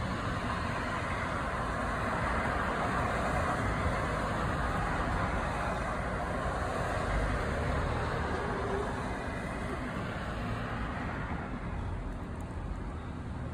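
Street traffic: cars and a pickup truck driving past, a steady rush of tyre and engine noise over a low rumble that swells through the first half and eases toward the end.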